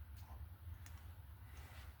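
A few faint, short clicks, like small parts being handled, over a low steady rumble.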